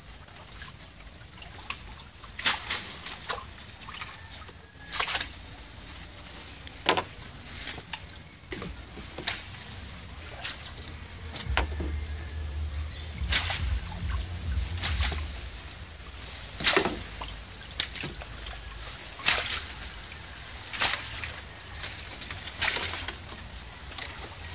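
Shallow muddy water splashing and sloshing as hands work a lú, a collapsible mesh shrimp-and-fish trap, in the water: a dozen or so sharp splashes, irregularly a second or two apart.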